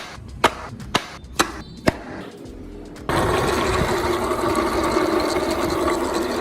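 Four sharp clicks about half a second apart, then a small electric power tool running steadily. The tool starts abruptly about three seconds in.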